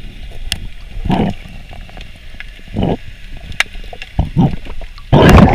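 Underwater sounds of a diver prying a giant rock scallop off a rock with a dive knife: sharp scraping clicks and several short, muffled rushing bursts of water. The loudest burst comes near the end, and the sound then cuts off suddenly.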